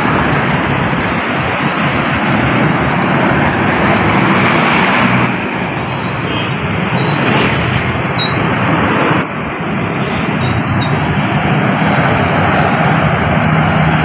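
Road traffic: a tour bus and motorbikes driving past, a steady wash of engine and tyre noise. A low engine hum grows near the end as the bus comes close.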